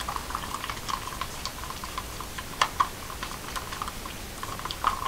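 Wooden craft stick stirring thick acrylic paint in a plastic cup, an irregular run of small clicks and scrapes as the stick knocks against the cup's sides, with a few sharper knocks. The paint is being mixed with pouring medium and water to thin it for pouring.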